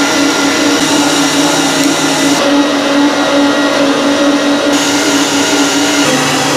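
Kenwood stand mixer's electric motor running steadily, driving its meat-grinder attachment as it grinds chunks of raw sirloin. A constant motor hum with a steady pitch.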